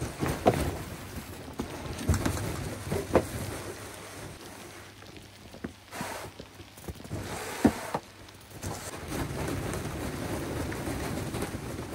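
Snowstorm noise: wind and snow pattering steadily, broken by several sharp knocks, the loudest about half a second, two, three and seven and a half seconds in.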